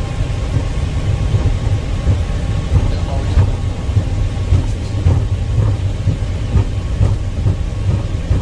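Boeing 737 MAX 8 on its takeoff roll, heard from the cockpit: a loud, steady low rumble from the engines and the wheels on the runway. Irregular thumps come through it as the landing gear runs over the runway surface.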